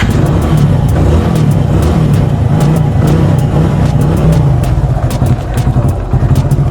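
Motorcycle engine running under way, a loud steady low throb from a Hero Passion Pro's small single-cylinder engine, easing briefly about six seconds in.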